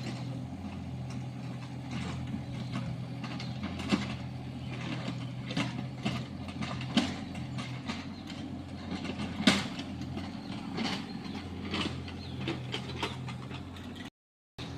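Excavator's diesel engine running steadily, with scattered metallic clanks and knocks from the machine working, the loudest about four, seven and nine and a half seconds in.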